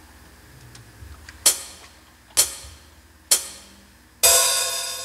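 Count-in of a backing track: three sharp ticks a little under a second apart, then a louder ringing hit near the end that fades away.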